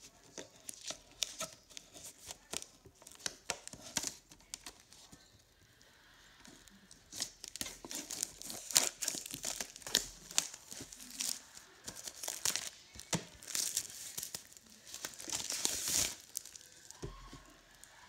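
Crinkling of a torn-open foil booster pack wrapper handled in the fingers, sharp crackles at first, then longer, denser crinkling and tearing as the Elite Trainer Box packaging is opened.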